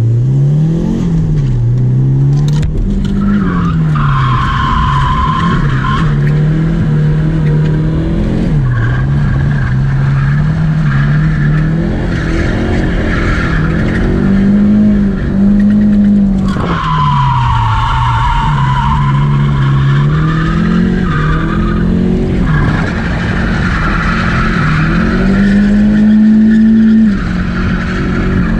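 Nissan S13's stock turbocharged SR20DET engine heard from inside the cabin, revving up and down over and over while drifting. The tyres squeal in three long stretches, with fainter squealing in between.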